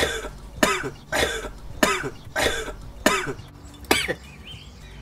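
A man coughing hard: about seven harsh coughs, one roughly every half second, as a swig of chilli-spiced homemade ginger beer goes down.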